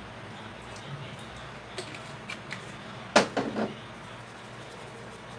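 Handling noises from small objects: a few light clicks, then a louder short clatter of knocks about three seconds in, over steady room noise.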